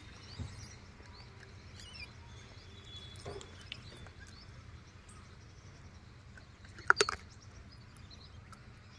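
Faint outdoor ambience with a steady low hum and a few faint, thin bird chirps. About seven seconds in comes a quick cluster of three or four sharp clicks.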